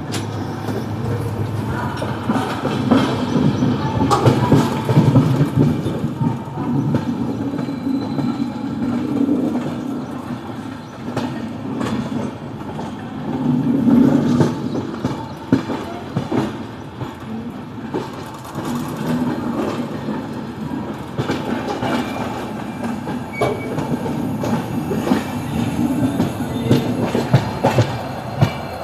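Train moving along the track: a steady rumble with wheels clattering and knocking over rail joints.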